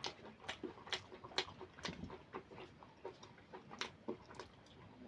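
Close-miked chewing of meat curry and rice: wet mouth smacks and clicks, irregular, a few each second.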